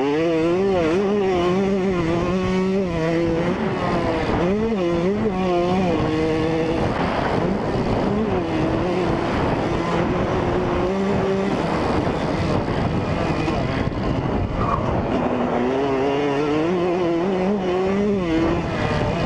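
2003 Yamaha YZ125's two-stroke single-cylinder engine being ridden hard, its pitch constantly rising and falling with throttle and gear changes. Around the middle the engine note drops back under a rushing noise, then climbs steadily again near the end.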